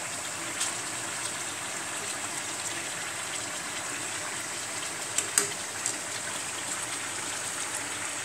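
Tuna steaks frying in olive oil and the liquid they have released, a steady sizzle as the uncovered pan cooks the juices off. A few light clicks of a spatula against the pan come about five seconds in.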